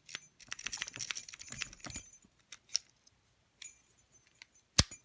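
Bogota lock-pick rake scraped rapidly in and out of a padlock's keyway under light tension, a fast run of small metallic clicks and rattles as it bounces the pins. After a pause there is a light metallic jingle, then one sharp loud click near the end.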